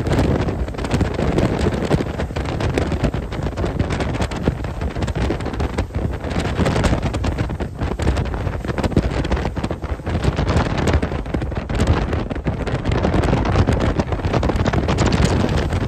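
Wind buffeting the microphone aboard a moving motorboat, over the rush of water past the hull.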